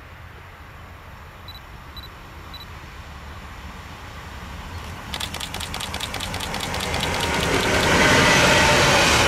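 Siemens Vectron electric freight locomotive hauling an intermodal train approaching and passing close by: a low rumble that grows louder, a rapid ticking from about five seconds in, then the loud rush of the locomotive and the trailer-carrying wagons going past from about eight seconds in. Three faint short high beeps sound about two seconds in.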